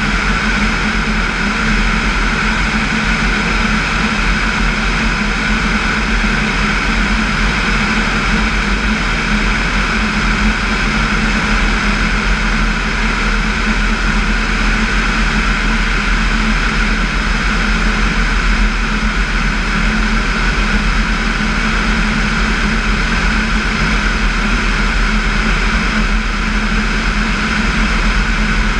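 Steady drone of a single-engine light airplane's piston engine and propeller, heard from a camera mounted outside under the wing.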